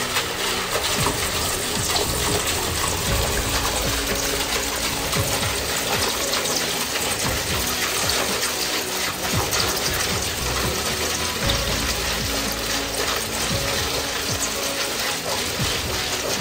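Water churning and sloshing in a steel bucket as it is stirred hard with a rod, while a thin stream of molten silver pours in and is quenched into grains. Steady throughout, with background music underneath.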